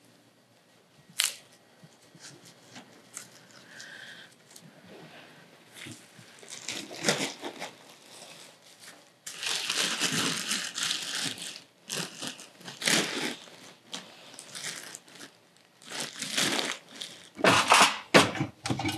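Crinkling and rustling of materials being handled, coming in bursts of a second or two, with a sharp click about a second in.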